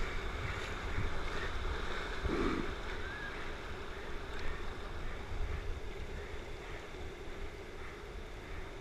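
River rapids rushing and churning as whitewater, heard from water level, with a steady low rumble of wind buffeting the microphone.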